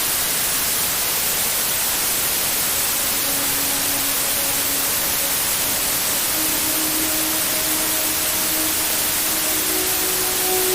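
Steady white noise hiss for lulling a baby to sleep. A soft, slow melody of long held notes comes in faintly about three seconds in.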